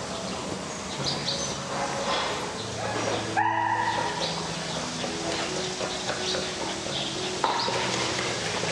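A dog barking: one sharp bark about three and a half seconds in and a shorter one near the end.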